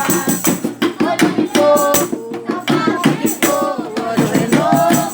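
Live gospel music: a fast, steady percussion beat with short melodic phrases over it, between sung lines.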